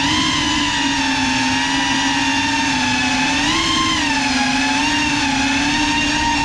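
Small FPV quadcopter's motors and propellers whining at one steady pitch with many overtones. The pitch climbs at the start, rises briefly about three and a half seconds in, then settles back.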